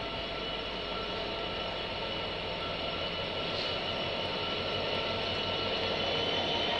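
Diesel freight locomotive crawling slowly into a station at the head of a ballast train, its engine running with steady high whining tones, growing gradually louder as it approaches.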